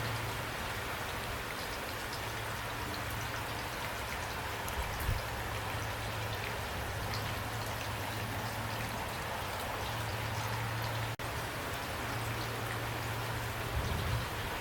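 Steady rain falling, with scattered individual drops ticking over a constant wash and a low steady hum underneath. The sound cuts out for an instant about eleven seconds in.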